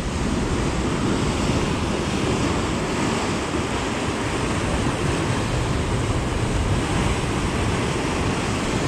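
Steady rush of sea surf washing over a rocky shore, mixed with wind.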